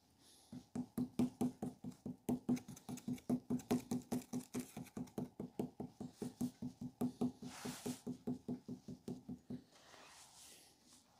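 Rapid, even knocking of a sculptor's modelling tool jabbed into damp clay, about five or six strokes a second, stopping near the end.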